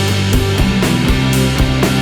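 Rock background music with a driving drum beat and a steady bass line.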